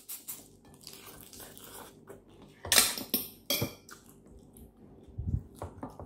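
Close-up mukbang eating sounds: a shrimp's head sucked and chewed, with short wet sucking and smacking noises. The loudest come in a cluster about three seconds in, with more near the end.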